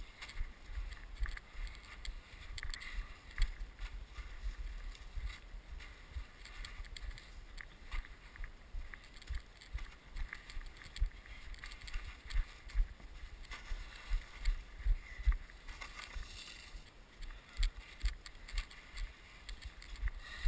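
Plastic sled scraping and bumping over packed, trampled snow, with irregular crunching knocks. Wind rumbles on the camera's microphone.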